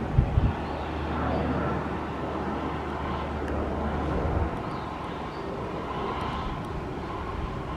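A Cessna 208 Caravan's PT6A turboprop running as the plane circles at low altitude, a steady engine noise with a low hum that fades about four and a half seconds in. A couple of short low thumps come just at the start.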